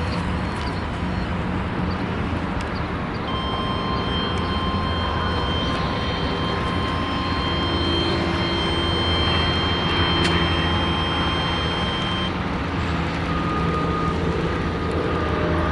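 Motor vehicle engine running steadily with surrounding traffic noise, a low hum underneath. A faint steady high whine sounds from about three seconds in until about twelve seconds in.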